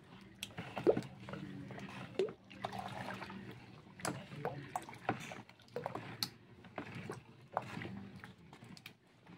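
Wooden paddle stirring foamy homemade dishwashing liquid in a plastic bucket, sloshing the soapy water while more water is added bit by bit. Occasional sharp knocks come through, the loudest about a second in.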